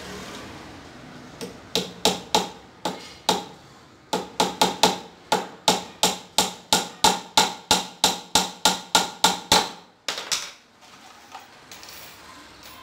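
A hammer strikes repeatedly on a laminated wooden panel of a small box. First come a few spaced blows, then a steady run of quicker blows at about three a second, which stops about ten seconds in.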